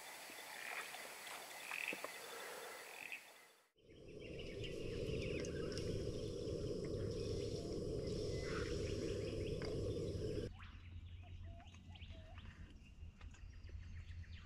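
Frogs calling at night in the first few seconds. After a cut, a steady low rumble with birds chirping over it, which stops about ten seconds in, leaving quieter birdsong.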